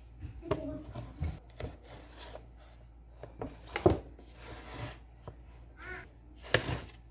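Kitchen knife slicing through soft rolled cinnamon-roll dough and knocking against the plate beneath: scattered short clicks and knocks, loudest about four seconds in and again near the end.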